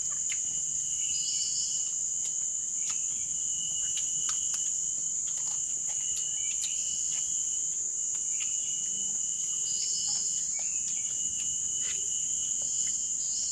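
Jungle insect chorus: a steady, high-pitched layered drone of several unbroken tones, with scattered short chirps and clicks over it.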